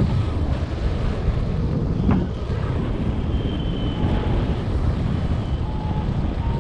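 Wind rushing over the microphone of a paraglider pilot's camera in flight, a steady rumble with a gust about two seconds in. A few short single beeps from a variometer sound a second or two apart.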